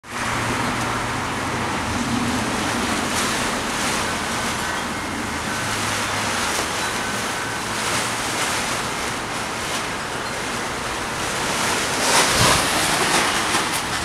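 Strong gusting wind with a loose blue plastic tarp flapping and snapping at a roof edge, the loudest gust about twelve seconds in.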